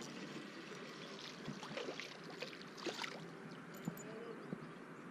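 Water trickling and splashing at the river's edge, with a few small clicks and knocks scattered through it.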